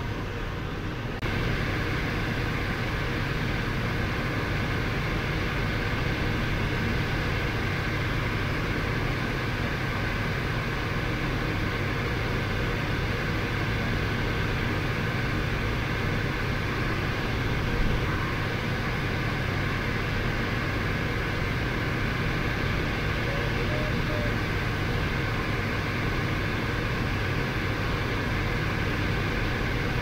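Steady rush of airflow over a sailplane's canopy in flight, heard inside the closed cockpit, with a faint steady whistle through it. It gets a little louder about a second in.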